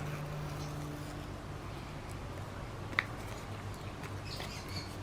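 Quiet handling of paper pieces over a steady low hum, with a single sharp click about three seconds in and faint rustling near the end.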